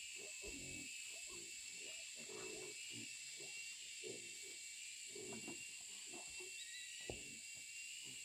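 Young wild boars grunting, short low grunts coming one or two a second, over a faint steady high-pitched hum. A single sharp knock sounds about seven seconds in.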